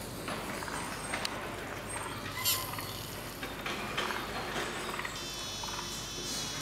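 Outdoor insects chirping and buzzing steadily, with a higher buzzing trill coming in near the end.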